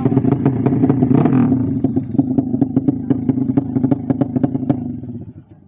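Racing motorcycle's tuned 200cc four-stroke engine running hard and loud, with rapid sharp crackles from the exhaust, fading away about five seconds in.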